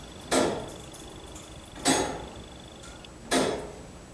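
Turret clock movement ticking, with three sharp, evenly spaced ticks about a second and a half apart.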